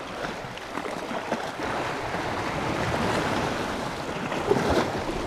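Sea washing against a rocky shoreline: a steady rushing of water, with wind on the microphone.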